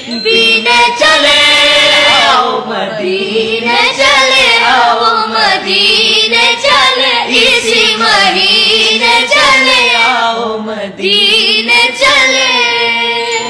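A naat being sung: a voice carrying a devotional melody with long, ornamented held notes over a steady drone.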